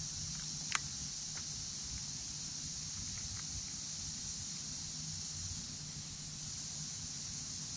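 Steady high-pitched insect chorus, a continuous shrill hum from the marsh, with a single sharp click about a second in.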